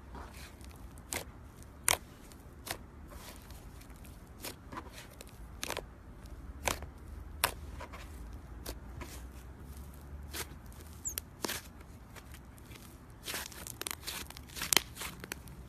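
Slime being handled by hand: irregular sticky clicks and pops, a quick run of them near the end.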